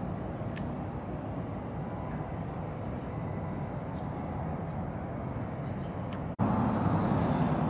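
Steady outdoor background rumble with a few faint, brief high ticks. It drops out for an instant a little over six seconds in and comes back louder.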